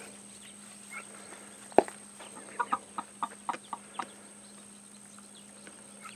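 Hens clucking while they peck at cantaloupe seeds and pulp: one sharp knock a little under two seconds in, then a quick run of short clucks.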